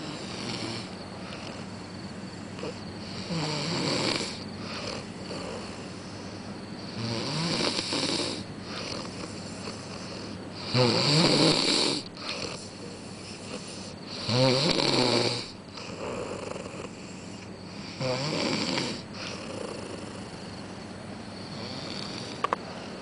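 A sleeping man snoring: five loud snores at a steady pace, one about every three and a half to four seconds, the middle two the loudest.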